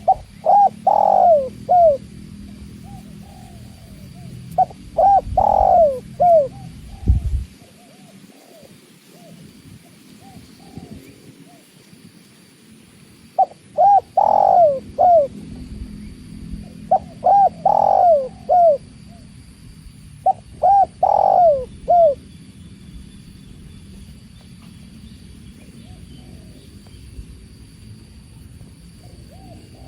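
Spotted dove (tekukur) cooing: five phrases of several short falling coos each, spaced a few seconds apart, over a steady low rush of water. A brief low thump comes about seven seconds in.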